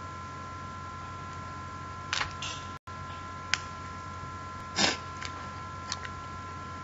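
Steady low electrical hum with a faint high whine, broken by a few short clicks, the loudest about two-thirds of the way through; the sound drops out for an instant a little before halfway.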